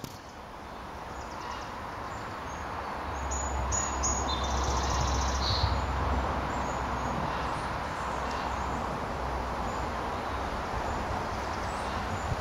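Steady outdoor ambience: an even hiss with a few faint, short bird chirps, and a low wind rumble on the microphone from about three to six seconds in.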